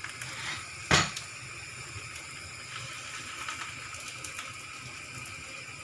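Beaten egg frying in oil in a frying pan: a steady sizzle with small crackles, and a single sharp knock about a second in.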